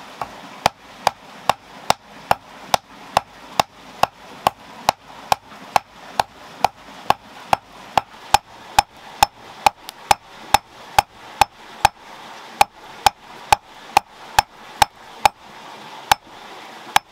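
Hand hammer forging a red-hot iron rod on a stone anvil: a steady run of blows, about two and a half a second, each with a short metallic ring, stopping just before the end.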